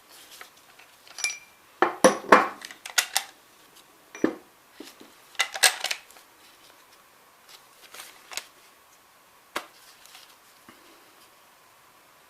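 Metal parts of a Ramset 122MD powder-actuated tool being handled and set down during teardown: a run of sharp clinks and clatters, in two main clusters about two and five and a half seconds in, with a few lighter clicks after.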